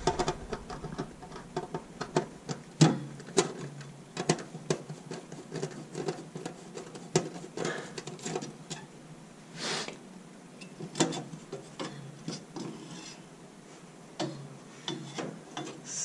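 Irregular clicks, light knocks and a few short scrapes of a hand tool on the screws and sheet-metal burner access panel of a gas steam boiler as the panel is unfastened and worked loose.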